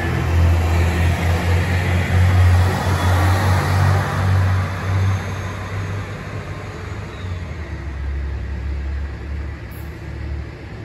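Six-car KiHa 189 series diesel multiple unit pulling away. Its diesel engines run under power with a deep, steady drone that is loud at first and fades from about halfway through as the train moves off.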